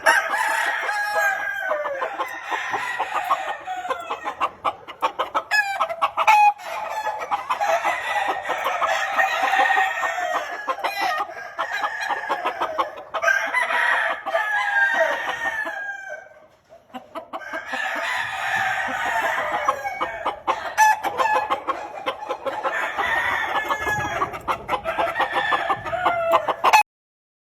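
Many gamefowl roosters crowing over one another, one crow after another with clucking in between. There is a brief lull about two-thirds of the way through, and the sound cuts off abruptly near the end.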